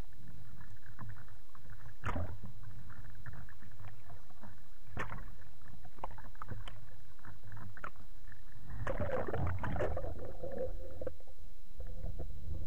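Sea water sloshing and splashing against a surface-level camera housing, over a steady low rumble, with scattered clicks. About nine seconds in there is a louder burst of splashing and bubbling as the camera goes under.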